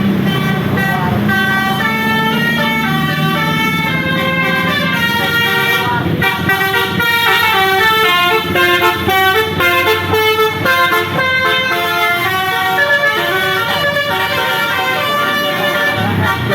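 A tour bus's multi-tone telolet air horn playing a quick melody of short stepped notes, over the low running of the bus engine, which is loudest in the first few seconds.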